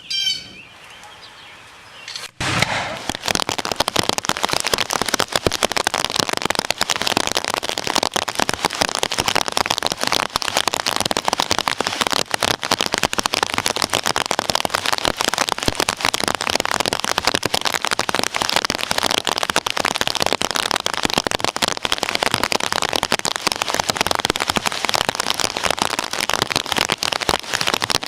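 Heavy thunderstorm rain, a dense steady crackling that starts abruptly about two seconds in.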